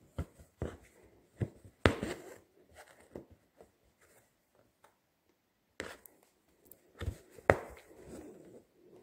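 Embroidery needle punching through cloth stretched tight in a wooden hoop, a run of sharp taps on the taut fabric, each followed by the rasp of thread being drawn through. The two loudest taps come about two seconds in and late on.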